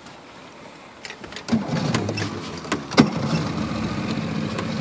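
A boat motor starts about a second and a half in and then runs steadily. A few sharp knocks come over it, the loudest about three seconds in.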